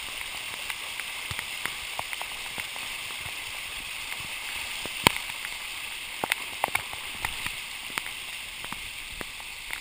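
Flash-flood runoff rushing along a street gutter in heavy rain: a steady hiss of fast-flowing water and rainfall, with scattered sharp ticks throughout.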